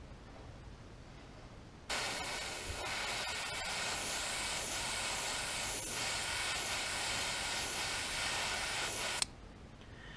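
Airbrush spraying paint through a comb stencil onto a lure: a steady hiss that starts abruptly about two seconds in, runs for about seven seconds and cuts off sharply.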